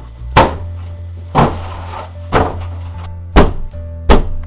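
Tense film score: a low held drone with shifting sustained tones, under heavy thuds about once a second that come a little faster near the end.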